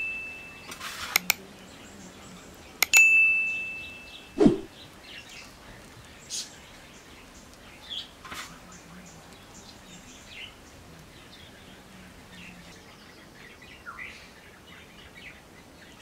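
Subscribe-button sound effect: a mouse click followed by a bell ding that rings on for about a second, near the start, and a dull thump just after it. Then short bird chirps, scattered and sparse.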